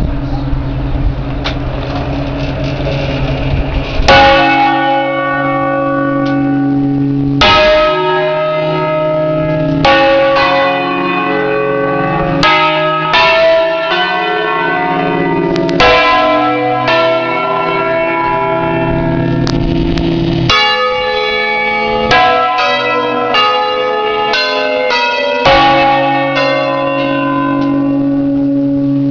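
Eight-bell Ambrosian-system ring of church bells tuned in C, heard close up in the belfry playing a solemn concerto. The bells' hum rings on for the first four seconds. Then deep single strikes come every two or three seconds, each ringing on, with a quicker run of notes near the end.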